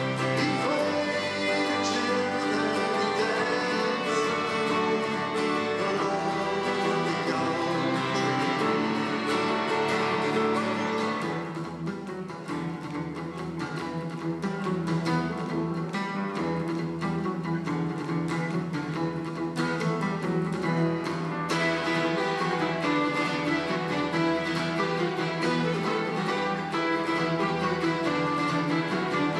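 Instrumental folk music: two violins bowing the tune over a strummed acoustic guitar, with no singing. About eleven seconds in the bass thins out and it gets a little quieter.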